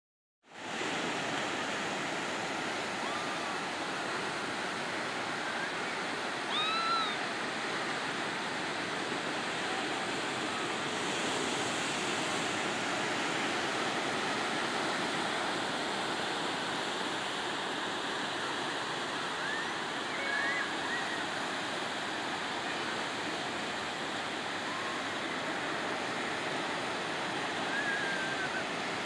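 Ocean surf breaking and washing over the rocks of a cove below a cliff, a steady rushing wash. A few brief high calls rise over it, about a quarter of the way in, two-thirds of the way in and near the end.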